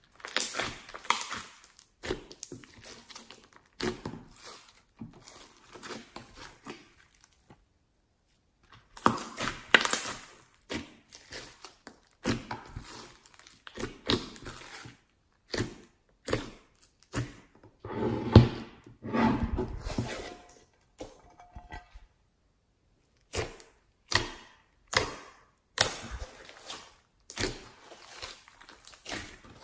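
A large mass of mixed glittery slime being squeezed, folded and poked by hand, giving irregular wet squelches, pops and crackles in bursts, with two short pauses.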